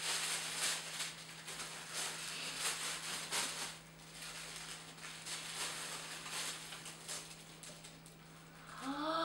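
Tissue paper rustling and crinkling in a run of short, irregular rustles as it is unfolded and pulled back from a box. Near the end a short voiced "ooh" rises and falls in pitch.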